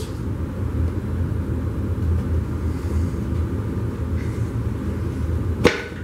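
A steady low rumble while a tight motorcycle tire is levered off its rim with tire irons, with one short, sharp sound near the end.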